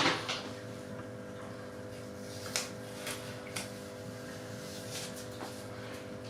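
Steady low electrical-type hum with a sharp click at the very start and a few faint clicks and rustles scattered through, as of small handling noises.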